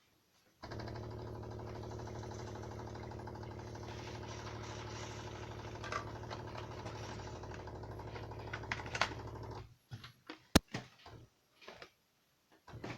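Tassimo Happy coffee maker's pump humming steadily as it brews the coffee pod of a latte macchiato. It starts about half a second in and stops after about nine seconds, followed by a single sharp click.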